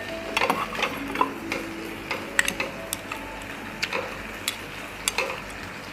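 Irregular clicks and taps of metal chopsticks against an electric grill plate and bowls while pork is turned and picked up.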